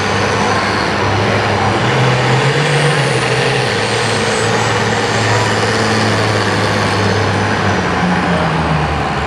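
John Deere 4010 pulling tractor's six-cylinder diesel engine running flat out under full load as it drags the sled: a loud, steady drone whose pitch rises briefly about two seconds in, then holds. A thin high whistle falls in pitch twice over it.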